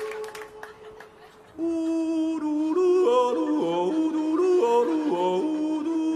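A man yodelling. A held note ends right at the start. After about a second and a half of quiet, he yodels a quick run of short notes that flip up and down in pitch, then holds a long steady note.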